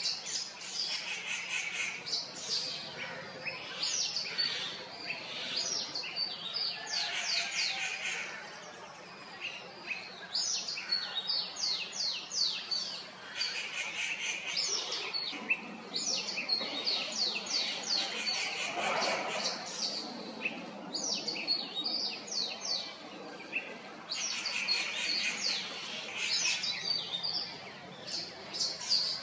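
Woodland birds chirping and calling: quick runs of rapid high notes that come in bouts every few seconds, with quieter stretches between.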